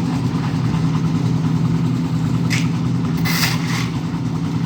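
Engine of a concrete mixer running steadily during a concrete pour. Short rushing bursts come in about two and a half and three and a half seconds in.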